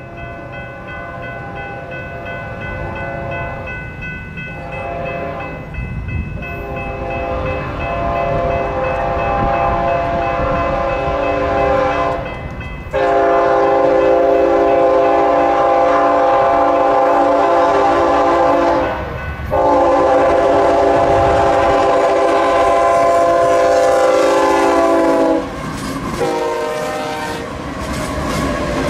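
Freight locomotive's air horn sounding a chord in a series of long blasts with short breaks, growing louder as the train approaches, the last two blasts the loudest. Underneath runs the low rumble of the train, which carries on after the horn stops near the end.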